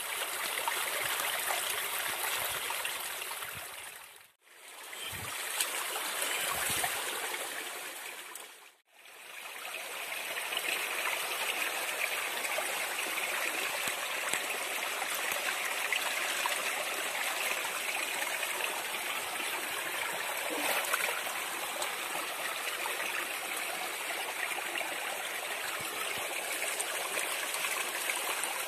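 Shallow stream running steadily over stones, with hands rinsing fish in the water. The sound cuts out briefly twice, about four and nine seconds in.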